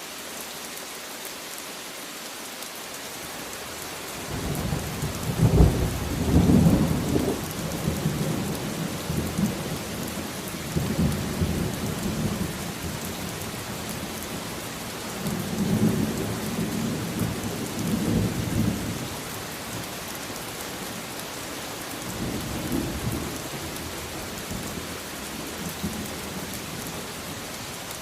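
Steady rain hiss with thunder rolling: a low rumble starts about four seconds in and is loudest soon after. It swells again several times, fading between swells.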